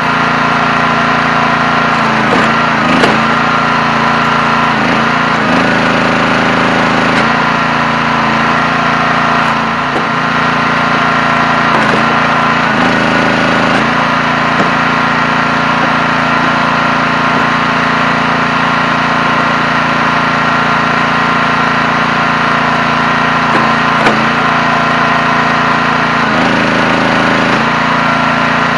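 The engine driving a 37-ton hydraulic log splitter runs steadily, its note changing several times as the ram comes under load pushing ash rounds through the six-way wedge. A couple of sharp cracks come from the wood splitting.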